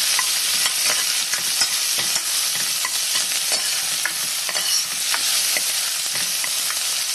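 Chopped onion, green chillies and curry leaves sizzling in hot oil for a tadka (tempering), with a metal spoon stirring and scraping against the pan in frequent short clicks.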